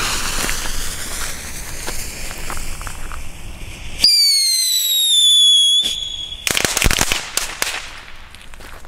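Volt Macht 2 youth firework going off: the fuse sparks and hisses for about four seconds, then a loud whistle slides down slightly and holds for about two seconds before cutting off sharply, followed by a quick run of cracks.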